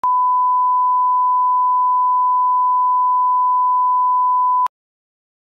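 A 1 kHz line-up test tone: one pure, steady beep at a single pitch held for nearly five seconds, then cutting off suddenly into dead silence.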